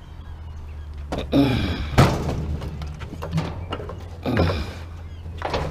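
Metal clanks and thumps as a child's bicycle is pushed onto a load of scrap: four or so knocks, the loudest about two seconds in.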